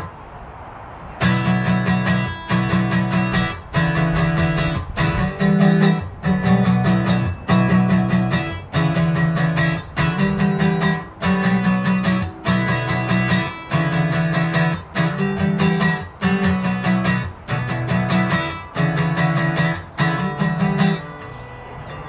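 Acoustic guitar strummed in a steady rhythm, starting about a second in. The chords come in short phrases, each separated by a brief break.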